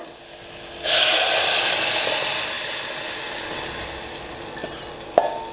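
Liquid horse gram kuzhambu mixture poured onto hot oil and fried tempering in a steel pot: a sudden loud sizzling hiss about a second in that slowly dies away. A single short metallic clink rings near the end.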